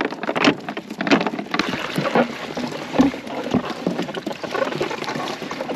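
Irregular splashing, dripping and sharp knocks and rattles of gear being handled in a kayak.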